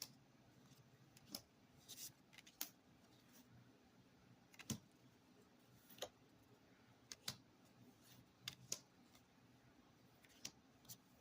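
Tarot cards being handled: faint, irregular light clicks and taps of card stock, about a dozen spread over the stretch.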